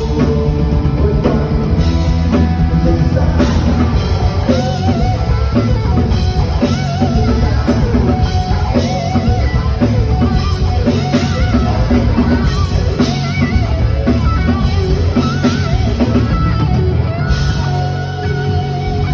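Rock band playing live: drum kit, bass and electric guitars, with a lead melody line that wavers and bends in pitch over the top.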